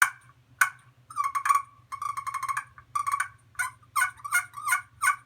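Miniature turkey tree call, a friction pot call with a striker pulled across an anodized aluminum surface, making a string of short clucks and a few quick rattling purrs. The notes imitate wild turkeys waking up on the roost.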